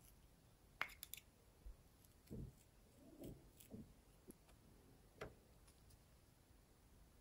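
Near silence with small handling sounds: a few faint clicks about a second in and again about five seconds in, and soft low taps in between, as hands handle small objects over a tray of slime.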